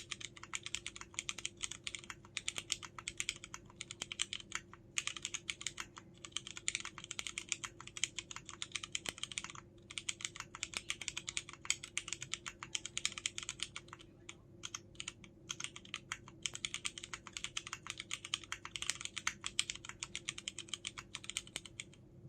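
Fast, continuous typing on a KMG B60 mechanical keyboard with Cherry MX Brown switches and DCS-profile keycaps: a dense run of keystroke clacks, broken by a few brief pauses, that stops just before the end.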